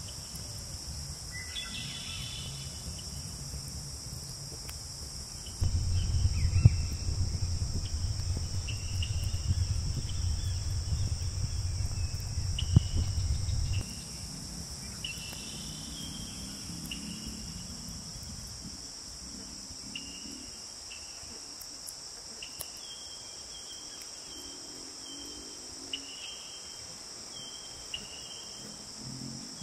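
Steady high-pitched insect chorus, crickets or similar, with short chirps scattered through it. A low rumble comes in about six seconds in and stops about eight seconds later.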